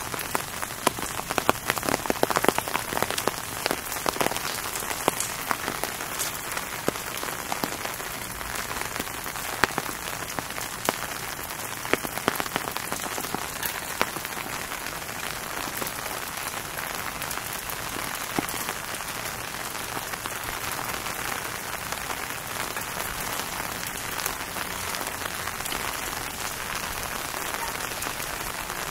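Steady rain falling, with many sharp, close drop hits that are densest in roughly the first half.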